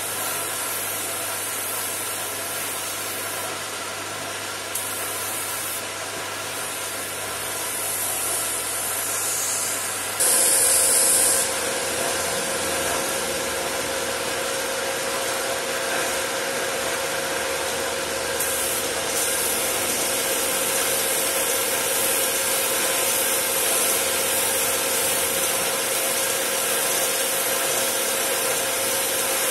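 Compressed-air gravity-feed spray gun hissing as paint is sprayed onto a car's side panel, over a steady mechanical hum. About a third of the way through, a louder, sharper hiss lasts about a second, and a steady whine continues afterwards.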